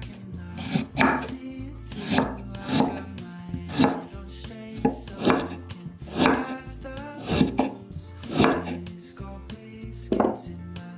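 Kitchen knife slicing a burdock root into thin rounds on a wooden cutting board, a crisp cut roughly once a second, over soft background music.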